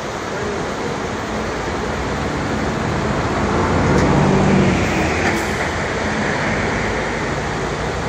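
Mountain stream rushing over rocky rapids: a steady roar of white water. About midway a low rumble swells the sound for a second or so, then it settles back.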